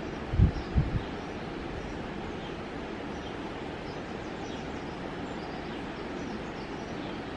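Steady outdoor background hiss with faint high bird chirps. Two brief low rumbles on the microphone come about half a second and a second in.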